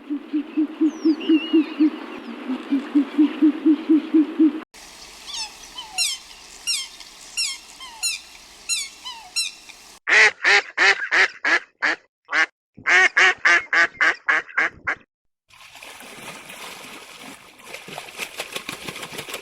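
Animal and bird calls in several short clips, one after another, with the sound changing abruptly about every five seconds. The loudest stretch is a fast series of short repeated calls.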